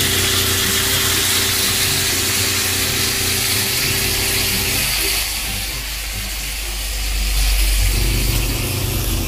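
Sauce sizzling in a hot wok, a steady hiss. Under it runs a steady low machine hum that drops out for a few seconds past the middle and comes back near the end.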